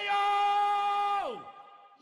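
A voice in a Chinese folk song holds one long, high shouted note for about a second, then slides steeply down in pitch and fades out.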